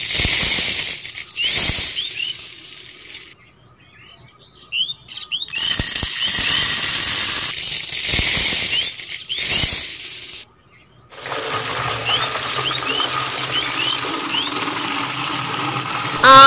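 Dry sand and then cement powder poured in hissing streams into a plastic cup, stopping and starting twice. From about eleven seconds in, a steadier pour that sounds like water running into the cup. Faint short bird chirps run throughout.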